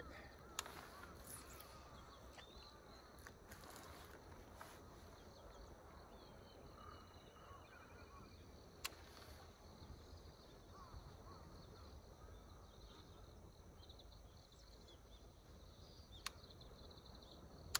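Near-silent outdoor ambience: a faint low wind rumble with a few faint high chirps, broken by three short sharp clicks spread through.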